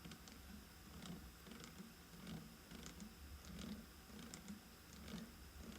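Faint low grinding from a Mercedes-Benz E180, pulsing in a steady rhythm roughly twice a second with light ticks over it. It is a noise that goes quiet when the car is under power.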